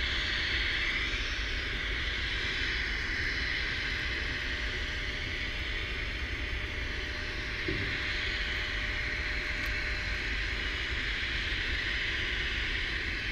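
Steady wind rumble on a small action-camera microphone, under a constant high hiss.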